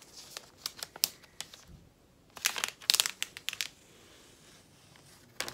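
Thin protective film being peeled off a new laptop, crinkling: a few small rustles at first, then a louder run of crackling about two and a half to three and a half seconds in.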